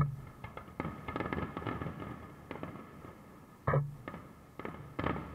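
Aerial fireworks shells bursting: a sharp bang at the start, another about 3.7 seconds in and a third near the end, with a quick run of smaller pops in between.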